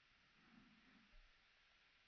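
Faint, slowed-down stomach gurgles over near silence: a soft low gurgle about half a second in and a brief one just after a second.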